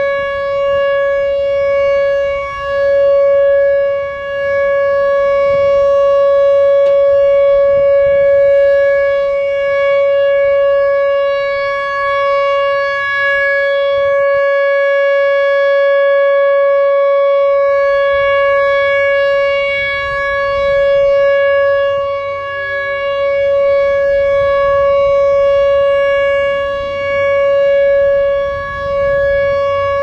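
Whelen Vortex R-4 Finback tornado siren sounding one steady, unchanging tone during its weekly test. The loudness dips briefly now and then as the rotating horn head turns away.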